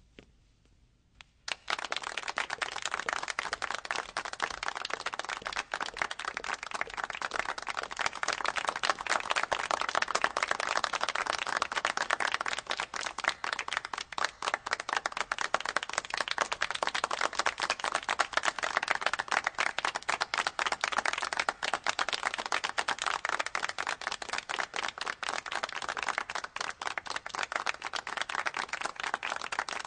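Audience applauding, starting suddenly about a second and a half in and going on steadily.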